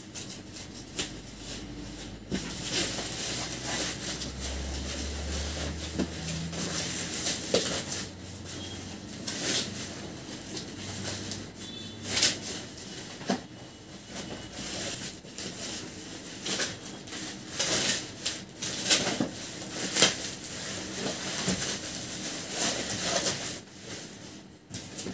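Scissors cutting through a plastic packaging sack, then the plastic rustling and crinkling as it is pulled off a cardboard box, in irregular sharp crackles.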